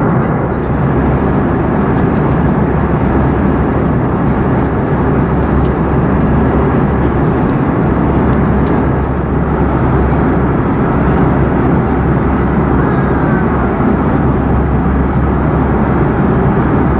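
Steady cabin noise of an Airbus A340-300 in cruise: an even, unbroken low roar of airflow and its four CFM56 engines, heard from inside the cabin.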